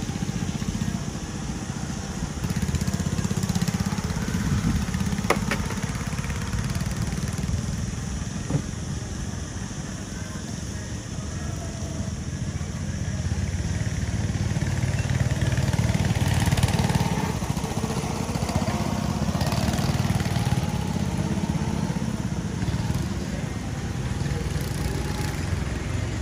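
Small petrol go-kart engines running on the circuit, a steady buzzing drone that swells louder for several seconds past the middle as karts come nearer. A sharp click about five seconds in.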